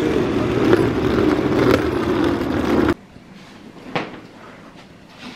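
A loud, steady rumbling noise that cuts off abruptly about three seconds in, leaving a quiet room where a soft knock is heard about a second later.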